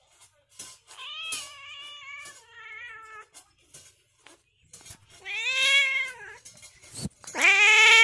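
Cat meowing: three long, drawn-out meows, each bending up and then down in pitch. The last one, near the end, is the loudest.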